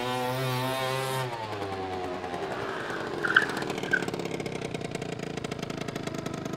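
Motor scooter engine running at high revs as it approaches, then the note drops as the throttle closes and it slows to pull up, settling into a lower putter. Two short high squeaks come about three and four seconds in.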